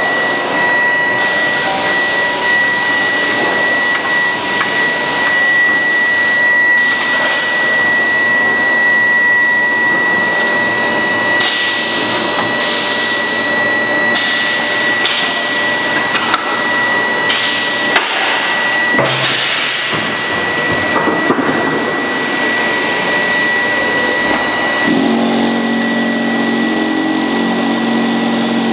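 Grinding-ball production line machinery running: a loud, steady mechanical din with a constant high whine, broken by intermittent rushes of noise and a few sharp knocks. Near the end a lower, engine-like hum sets in.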